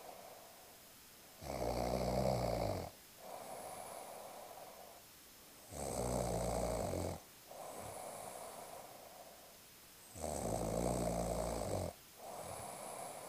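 A person snoring: three loud, rough snores about four seconds apart, each followed by a quieter, airy breath.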